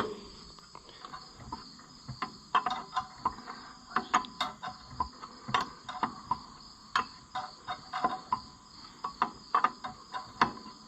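Steel wrench clinking against a bolt and the starter housing as a Ferguson 30 starter is bolted back on with an 11/16 factory wrench: irregular sharp metal clinks, two or three a second. Crickets chirp steadily behind.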